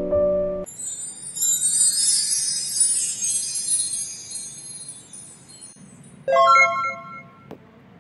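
Background music: a piano phrase stops under a second in and gives way to a high, twinkling chime sweep that fades away over several seconds. A short bright chord sounds about six seconds in.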